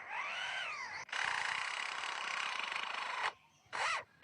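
Lyrebird imitating an electric drill. A whine rises and falls in pitch in quick arcs, then a steady dense whir runs for about two seconds before another short arc.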